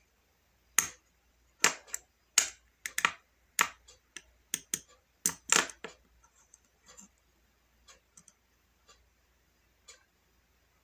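A run of sharp, irregular taps and clicks of the kind made by typing, about fifteen quick ones over the first six seconds, then a few sparser, fainter ones.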